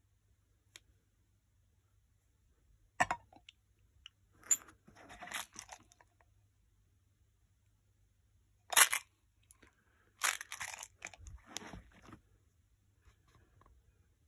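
Handling noises from small items in a foam-lined plastic case: a sharp knock about three seconds in and another near nine seconds, each followed by a stretch of scraping and rustling.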